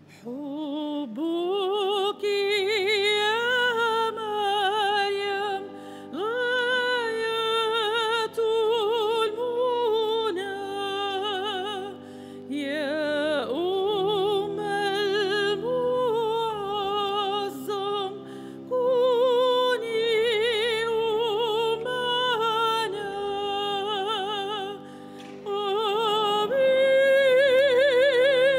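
A solo female voice singing a slow sacred song with wide vibrato, in long phrases with short breaks between them, over a steady sustained instrumental accompaniment.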